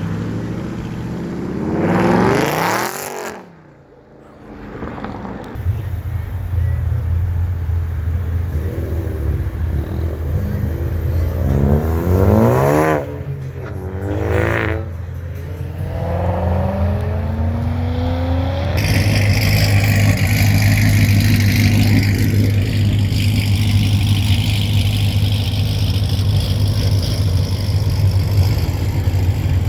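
Car engines revving hard, the pitch sweeping up and down, between stretches of steady running. The sound dips briefly a few seconds in and changes abruptly about two-thirds of the way through.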